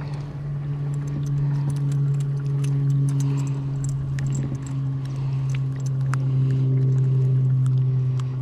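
Steady low hum of a small motor, with scattered light clicks and rattles over it.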